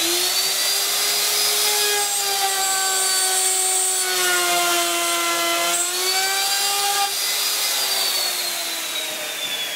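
Handheld electric router running at full speed as it cuts a groove across maple plywood, its whine sagging slightly in pitch under load midway. About eight seconds in it is switched off and winds down with a falling whine.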